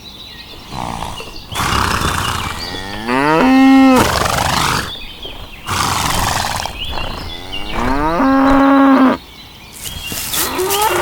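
Cattle mooing: two drawn-out moos, each rising in pitch and then holding steady, with rough, breathy noise between and around them.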